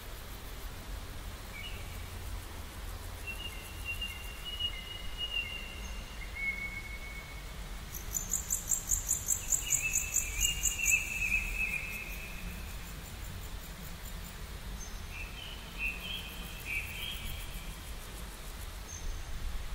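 Outdoor ambience: birds calling in short whistled notes, and a high, rapid trill about eight seconds in that is the loudest sound, over a low steady rumble.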